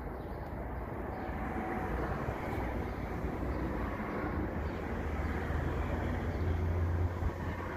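Steady low rumble of a distant engine, growing louder and loudest near the end.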